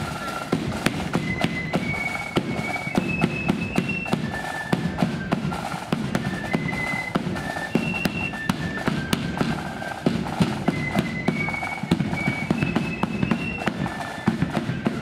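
Marching flute band playing a tune: a high flute melody over rapid, sharp snare drum strokes and a bass drum. A rising phrase of the melody comes round twice.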